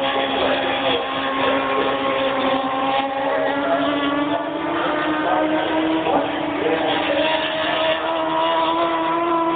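Superstock race bikes' engines droning out on the circuit, one steady note slowly rising in pitch, with a small break about six seconds in.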